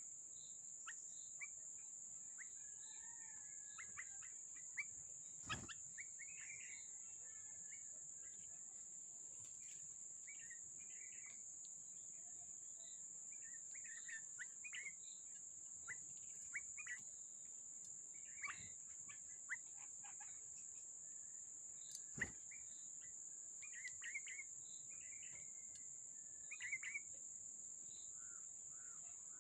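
Small birds chirping in short, scattered calls over a steady high-pitched insect drone, with two sharp clicks, one about five seconds in and one about twenty-two seconds in.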